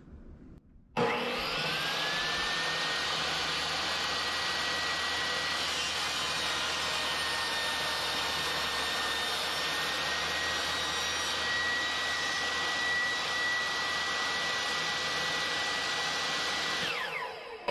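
Craftsman 10-inch portable table saw starting up about a second in, its whine rising to a steady pitch and then running at full speed while a scrap board is crosscut with the miter gauge. Near the end it is switched off and winds down.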